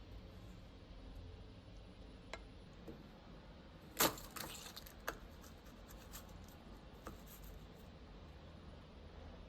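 Kitchen utensils and dishes clinking: one sharp clink about four seconds in, then a few lighter clicks and taps over the next three seconds, over a faint low hum.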